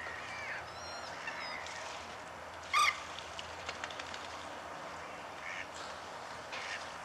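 A single short, loud honking call from a waterfowl about three seconds in. Faint thin calls from small birds come in the first second or so.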